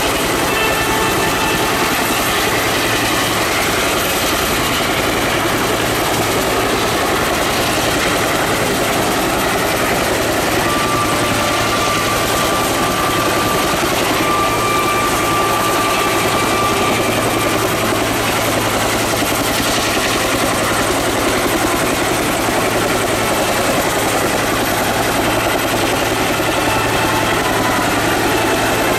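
UH-1J utility helicopter running steadily, its two-blade main rotor beating and its turbine engine droning without letup.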